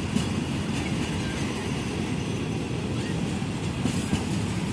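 A train running by with a steady low rumble.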